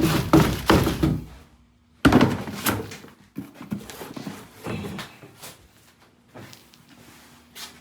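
Knocking and thudding: a cluster of thumps at the start, a sudden loud thud about two seconds in, then lighter scattered clicks and knocks.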